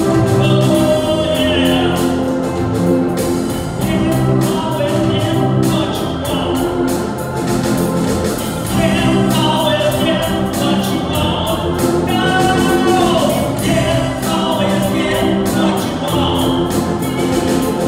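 Church choir singing with live band accompaniment, the choir's voices carrying the melody over the instruments.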